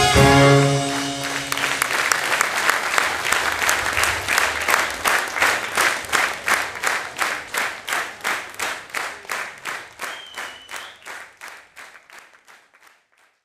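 A brass band's held final chord cuts off about a second in, and the audience then claps in unison, about three claps a second, slowly fading out near the end.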